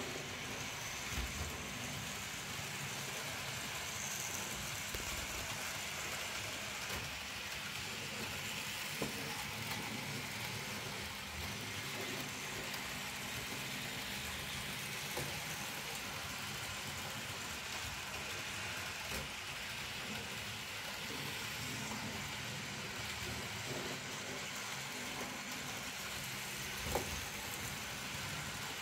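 N gauge model locomotive running its train of coaches around the track: a steady whirring hiss from the small motor and wheels, with a few faint clicks.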